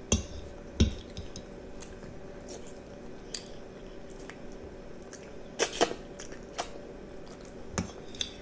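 Metal fork clinking and scraping against a plate as spaghetti in meat sauce is twirled and lifted, a few scattered sharp clinks with the loudest pair about two thirds of the way through, between soft wet chewing of the noodles.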